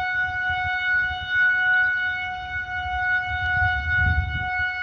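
Kaw Dam's warning siren sounding one steady, unwavering tone. It signals that the dam is raising its water release.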